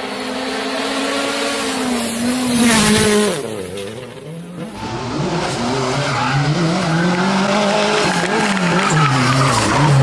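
Rally car engines at full throttle, revving up and falling back through gear changes, with a loud rush of sliding tyre and gravel noise about three seconds in.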